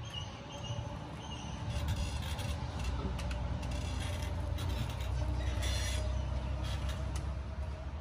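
Wheelchair rolling in through a doorway: a low rumble that builds about two seconds in and eases near the end, with a faint steady whine and a few light rattles.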